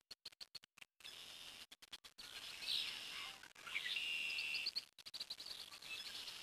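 Small birds chirping and twittering, with the loudest run of calls about three seconds in and a held whistled note just after. The sound cuts out briefly several times in the first two seconds.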